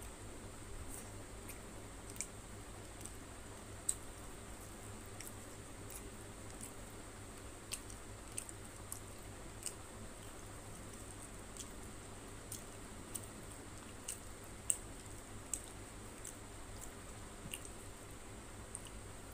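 Close-up eating sounds: a person chewing fried tilapia and rice, wet and squishy, with irregular sharp little clicks about once or twice a second over a steady low hum.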